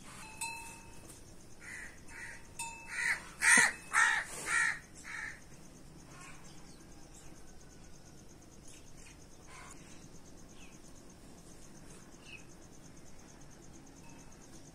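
A crow cawing, about six harsh calls in quick succession a couple of seconds in, over a steady high buzz of crickets.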